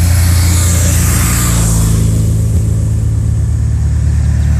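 Police escort motorcycles passing close, with a rushing pass-by that fades and drops in pitch in the first two seconds, over a steady low engine drone.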